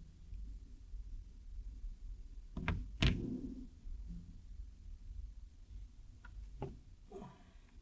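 A few sharp knocks and thuds of things being handled, over a low steady hum: two close together about three seconds in, the second the loudest with a brief ring, then another near the end followed by a short rough scrape.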